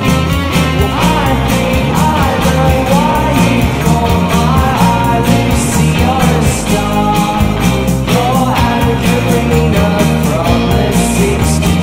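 Background music: a rock song with a sung vocal over a steady beat.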